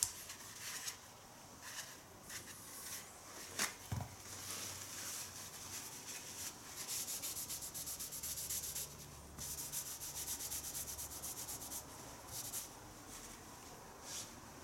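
A tissue rubbed and scrubbed against a tatami mat, a scratchy hiss in repeated strokes that come fast and steady through the middle stretch, with one sharp knock about four seconds in.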